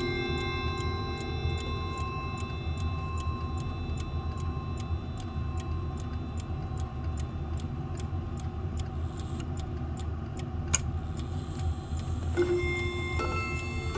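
Howard Miller 612-437 mantel clock's 340-020 movement ticking steadily, while the chime rods ring down from notes struck just before. A sharper click comes about 11 seconds in, and the rods are struck again about 12.5 and 13 seconds in.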